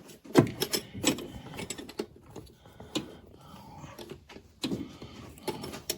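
Scattered sharp clicks and knocks of wrenches and other hand tools being handled against metal, about five distinct strikes at uneven intervals.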